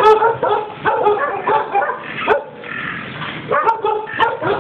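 Dog barking and yipping in a quick run of short, high yips, with a brief lull a little past halfway.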